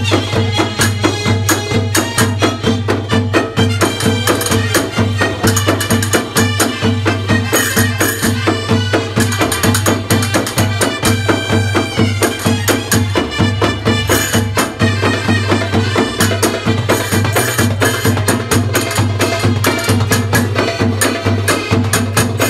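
Live Egyptian folk music for a tanoura dance: several hand-held frame drums with jingles beat a fast, steady rhythm over a sustained low tone.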